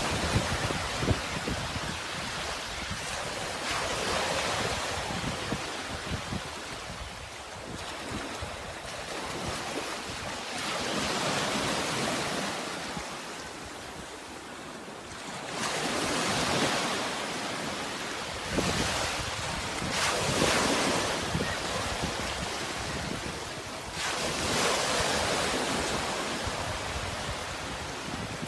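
Sea waves breaking and washing ashore, the surf swelling and fading every few seconds. Wind buffets the microphone with a low rumble.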